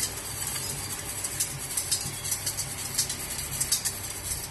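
Wire balloon whisk stirring buttermilk and salt in a stainless steel bowl, its wires ticking and scraping against the metal in quick, irregular clicks.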